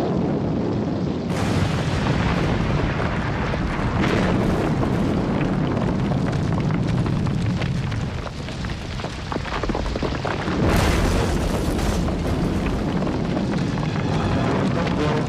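Sound-effect blast of demolition charges going off and rock crashing down in a landslide: a continuous heavy rumble with fresh bursts about a second in, at about four seconds and again near eleven seconds.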